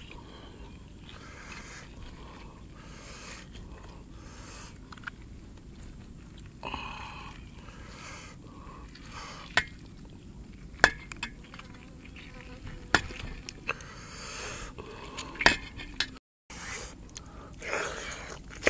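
A knife cutting and scraping through cooked beef head meat and bone in a metal tray, with a few sharp clinks of the blade against the tray or bone in the middle stretch. Near the end, wet eating and chewing sounds.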